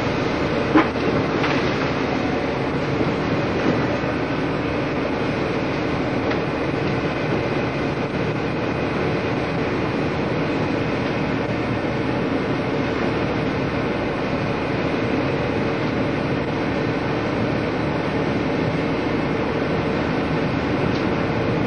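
Steady drone of a tugboat's engine while towing, mixed with wind and sea noise. There is a single short knock about a second in.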